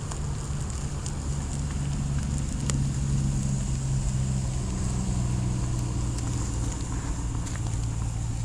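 Charcoal grill fire crackling with scattered sharp pops over a steady low hum that shifts slightly in pitch, like a vehicle engine running.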